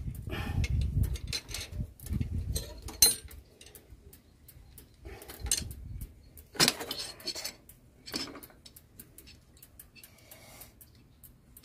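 Steel combination spanner clinking and knocking against a bicycle pedal's spindle and the crank arm as it is fitted, turned and refitted to tighten the pedal: scattered metallic clicks, with a low rumble in the first few seconds.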